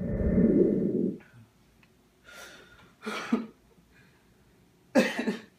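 A loud, muffled low rumble of the phone's microphone being handled for about the first second. Then three short sobbing breaths from a grieving person, spaced a second or two apart.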